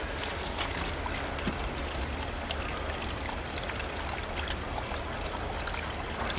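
Water trickling steadily into a small garden pond, with a faint patter of ticks over a low, steady rumble.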